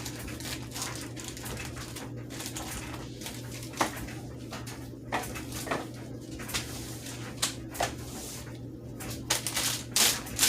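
Small parts and packaging being handled: scattered short clicks and rustles over a steady low hum, getting busier near the end.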